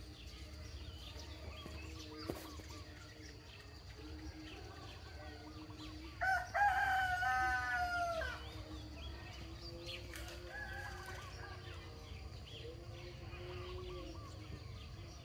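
A rooster crows once, about six seconds in: a single crow of about two seconds that falls slightly in pitch at the end.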